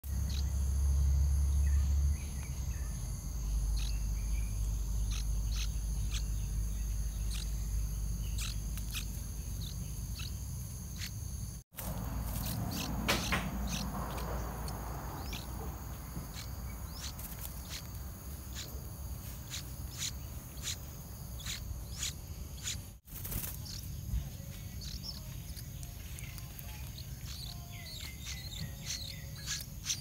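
Steady high-pitched insect drone of crickets or cicadas, with many short high chirps scattered through it and a low rumble that is strongest in the first two seconds. The sound drops out briefly twice.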